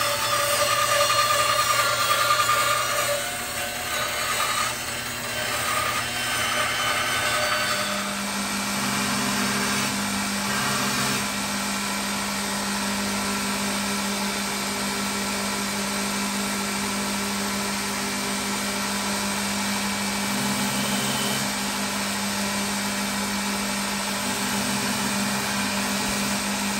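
A bandsaw cutting through wood, then from about eight seconds in a belt grinder running with a steady hum as a wooden handle is sanded against the belt.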